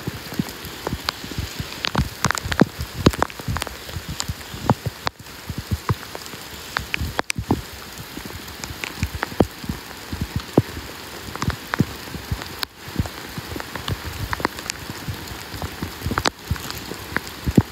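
Heavy rain falling on a paved path, a steady hiss with frequent sharp, irregular hits of drops close by.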